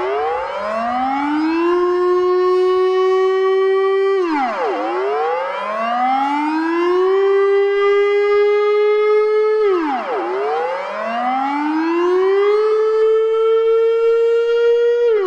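Dutch civil-defence warning siren sounding the public alarm: a loud wailing tone that rises over about two seconds, holds, then drops sharply, repeating three times about every five and a half seconds.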